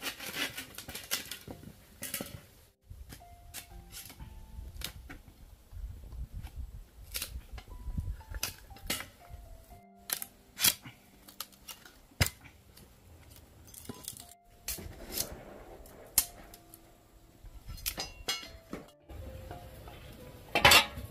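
Soft background music, with sharp taps and knocks from a cleaver chopping and shaving a bamboo stick.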